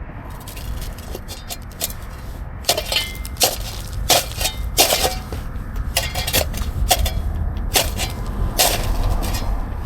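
Metal shovel blade striking and scraping hard, compacted ground: a string of irregular sharp chinking strikes, several a second at times, as the blade barely bites into the hard soil.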